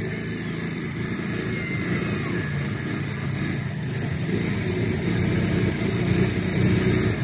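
Quad bike engine running steadily close up while under way, getting a little louder after about five seconds.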